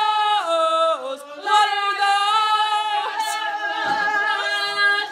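A woman singing a cappella in a mock-classical style, holding long notes with falls in pitch between some of them.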